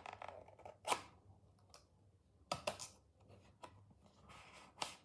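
Hands handling and opening a small cardboard product box with plastic packaging: about five short sharp clicks and scrapes, spread out with quiet handling noise in between.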